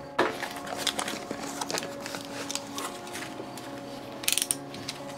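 Light clicks, taps and rustles of tools and sound-deadening pads being handled on a bare metal van floor, with a quick run of ratcheting clicks about four seconds in.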